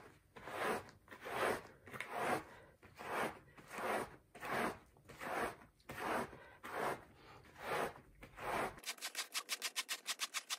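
A rubber dish glove rubbing back and forth over a chenille bath mat, a scratchy stroke about every 0.8 seconds, pulling embedded cat hair out of the pile. About nine seconds in, the strokes become short and quick, several a second.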